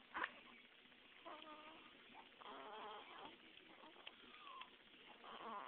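A newborn baby fussing in faint, short cries with a wavering pitch, two or three of them; a brief sharp sound just at the start is the loudest thing.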